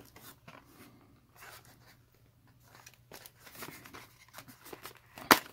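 Faint rustling, scraping and small clicks of a mouse's cardboard tray and clear plastic cover being handled and pried open, with one sharp snap near the end.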